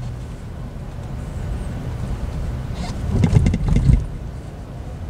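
Car cabin road noise: a low, steady rumble from the engine and tyres on a rough dirt street. About three seconds in, a brief louder burst of sound rises over it for about a second.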